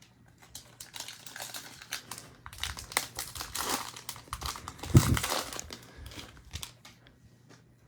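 A trading-card pack wrapper being torn open and crinkled by hand: a dense run of crackles, with a soft thump about five seconds in, dying away near the end.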